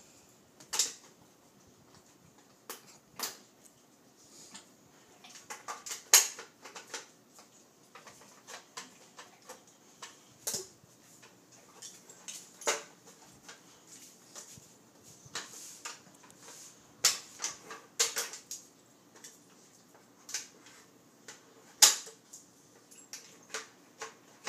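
Hard plastic treat puzzle toy clacking and knocking on a tile floor as a boxer puppy noses and paws at it and its flip lids: irregular sharp clacks, a few much louder than the rest.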